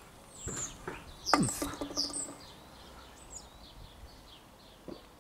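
Garden birds chirping, with a louder burst about a second and a half in as beer is poured from the can into a glass.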